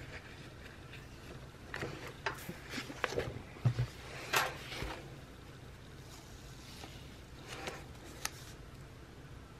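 Faint, scattered rustles and light ticks of paper stickers being peeled up and handled on a planner page, mostly in the first half with a couple more near the end.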